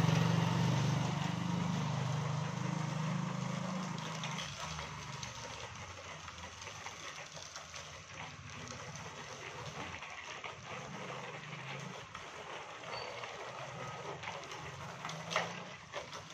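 A motorcycle engine running close by, fading away over the first four seconds. After that, wind and outdoor street noise from riding a bicycle, with scattered light clicks.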